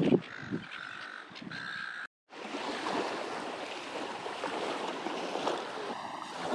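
Two short, drawn-out calls, crow-like, in the first two seconds. After a sudden cut, a steady rush of wind and gentle surf on an open sandy shore.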